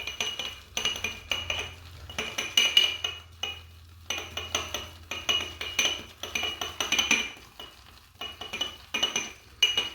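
Synthetic shaving brush swirled and whisked inside a shaving mug to build a richer lather, clinking and scraping against the mug's wall in quick repeated strokes with a bright ringing.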